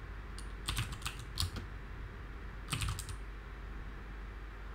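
Typing on a computer keyboard: two short runs of keystroke clicks, one about half a second to a second and a half in and a shorter one near three seconds.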